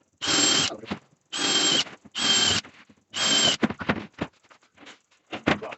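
A power tool run in four short bursts, each with a high steady whine, followed by a few light clicks and knocks.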